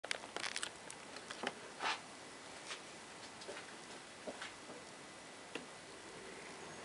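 Scattered small clicks and ticks, several close together in the first two seconds and sparse after, over a faint hiss. A faint hum starts to rise near the end.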